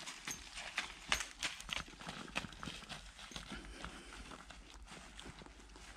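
A horse's hooves clip-clopping at a walk, irregular steps that thin out and grow fainter after about three seconds.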